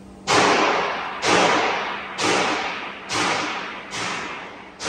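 Kikinda URB-1000-A surface grinder working its cross-travel in-feed: a sudden burst of hiss about once a second, each fading away before the next.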